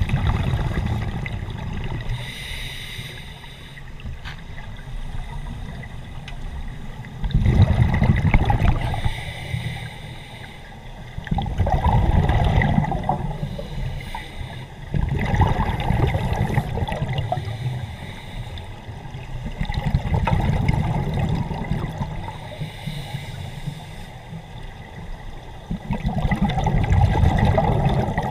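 Scuba diver breathing underwater through a regulator: about six gurgling bursts of exhaled bubbles, a few seconds apart, with quieter stretches between.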